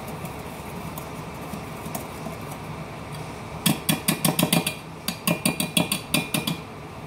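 Wire whisk beating gram-flour batter in a steel bowl, clinking rapidly against the bowl's sides, about seven clinks a second. The clinks come in two runs from about halfway in, with a short break between.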